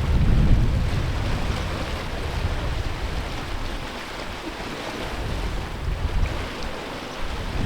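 Sea surf washing steadily on the shore, with wind buffeting the microphone. The low wind rumble is strongest about half a second in and eases off after a few seconds.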